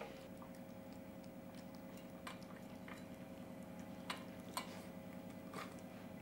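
Small white dog eating from a stainless steel bowl: a handful of faint, irregular clicks of food and muzzle against the metal, over a steady low hum.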